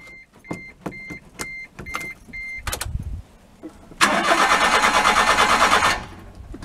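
Starter motor cranking the Mitsubishi Minicab U42T's 3G83 three-cylinder engine for about two seconds without it catching, then stopping abruptly. It will not fire because the failed electric fuel pump, broken open inside, delivers no petrol to the carburettor. Before the cranking, six short high electronic beeps about half a second apart and a click.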